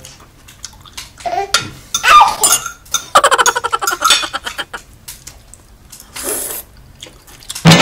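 Close eating sounds: chewing and mouth noises from people eating salad and artichoke leaves, with clicks of cutlery on plates and a few brief vocal noises around the middle.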